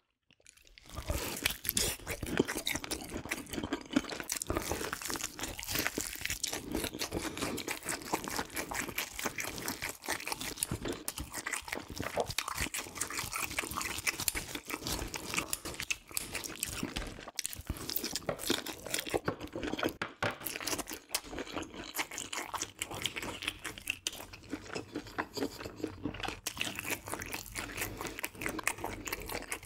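Eating sounds: continuous crunching and chewing, starting about a second in.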